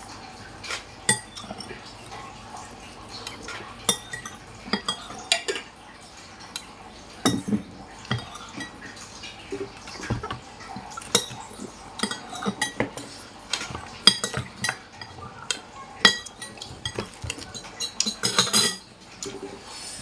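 A metal spoon and fork clinking and scraping against a ceramic soup bowl, in scattered sharp clinks. Near the end comes a quick run of scrapes as the last of the bakso is gathered from the bowl.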